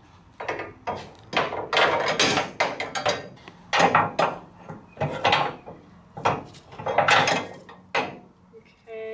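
Steel rear suspension parts clanking and scraping as a coil spring is worked into its seat on the rear axle, an irregular string of about fifteen sharp knocks and short scrapes.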